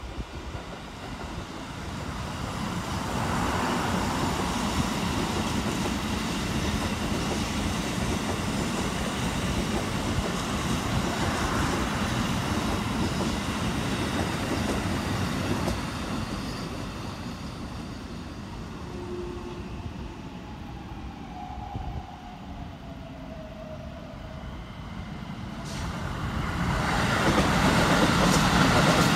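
Keikyu electric trains running past on the tracks, with steady wheel-on-rail noise. The first pass fades after the middle, a faint falling whine sounds in the quieter stretch, and a second train runs past close from about 26 s in, the loudest part.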